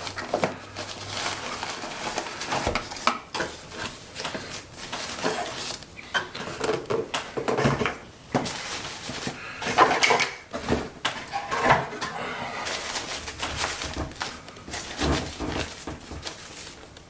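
Camera packaging being handled and opened by hand: an irregular run of clicks, knocks and rustles as the box and its inner packing are worked open.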